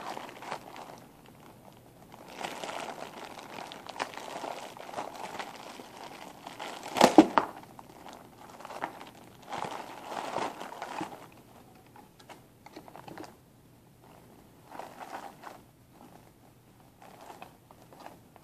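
Clear plastic bag crinkling and rustling as hands rummage through it and pull toys out, with one louder sharp crack about seven seconds in. The rustling thins to occasional small rustles and taps in the second half.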